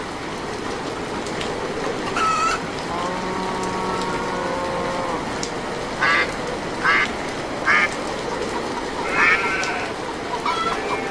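Short animal calls, three of them about a second apart near the middle, over a steady hiss.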